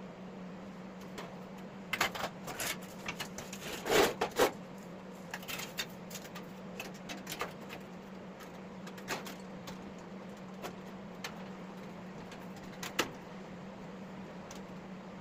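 Rusty steel mower deck of an Eaton Viking mini lawn tractor being shifted and set down over a template on a concrete floor: irregular knocks, scrapes and clicks, loudest in a short cluster about four seconds in. A steady low hum runs underneath.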